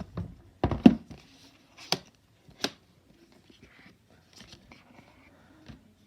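Apple Watch box and packaging being handled: a few sharp taps and knocks, the loudest about a second in, with light rustling between.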